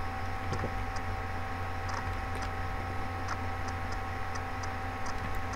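Steady low electrical hum, with faint, irregularly spaced clicks of a computer mouse being worked at a desk.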